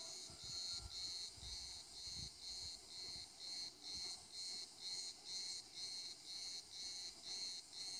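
Faint insect song outdoors: a high-pitched chirring that pulses evenly, a little over two times a second.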